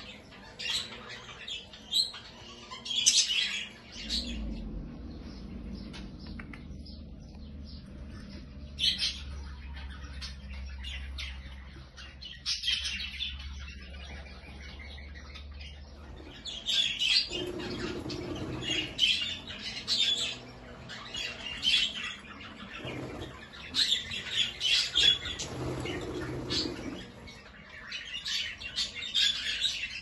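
Budgerigars chirping and chattering in short scattered calls, with louder clusters of squawky calls in the second half. A low steady hum comes in about four seconds in and stops about halfway through.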